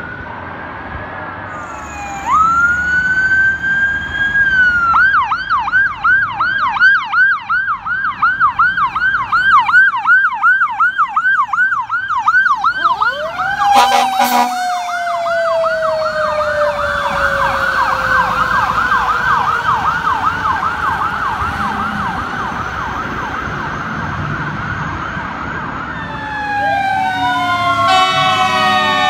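Fire engine responding with its siren: the siren rises into a wail, then switches to a fast yelp, and an air horn blasts about halfway through while a lower siren tone slowly winds down. Near the end another responding unit's siren sweeps up and down with steady horn blasts.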